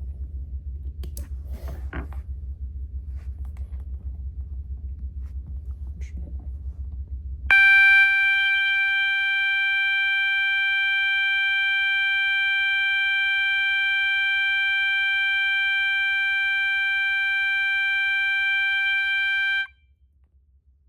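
System Sensor MA/SS-24D horn sounding its 800 Hz continuous tone: one steady, buzzy tone that comes in suddenly about seven seconds in, holds for about twelve seconds and cuts off abruptly. Before it there is a low hum with a few scattered clicks.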